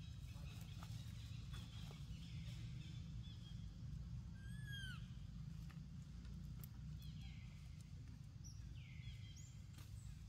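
Macaques giving short, high-pitched coo calls that rise and fall in pitch, one every two to three seconds, over a steady low rumble.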